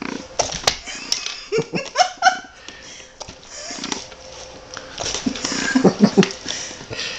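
English bulldog snuffling and licking at a laptop screen with its nose and tongue: short, irregular snuffles and clicks with a few brief grunts.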